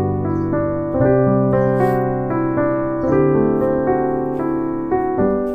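Background piano music: sustained chords, changing about every two seconds.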